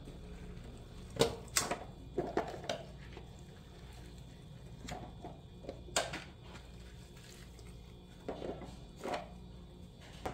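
Paper lids of cup noodles being peeled and rustled, with scattered light knocks as the cups and a metal ramen pot are handled, over a faint low steady hum.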